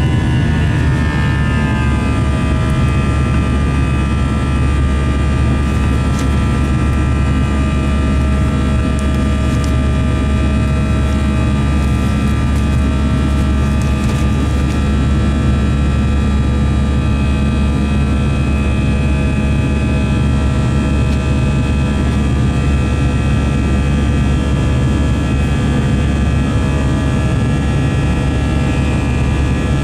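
Airbus A321 jet engine heard from the cabin over the wing while climbing after takeoff: a loud, steady rumble with a whine whose pitch falls over the first couple of seconds, then holds steady.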